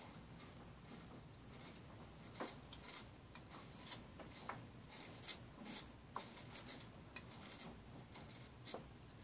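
Straight razor scraping through lathered stubble on the chin and jaw: a series of short, faint, irregular scratchy strokes.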